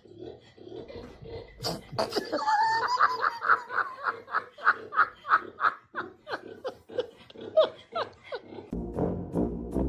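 Laughter in a quick run of short bursts, about three a second, that builds from about two seconds in and fades near the end. Music comes in near the end.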